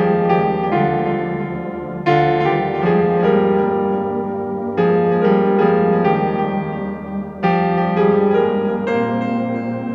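Background music played on piano or electric piano, with chords struck afresh about every two and a half seconds.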